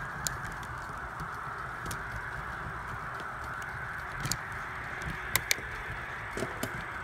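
Bicycle rolling along a concrete path: steady tyre and wind noise with a few sharp clicks and rattles, the loudest two in quick succession about five seconds in.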